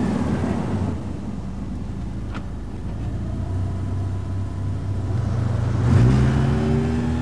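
Saloon car driving past with a steady engine hum; about six seconds in the engine revs up as the car accelerates away.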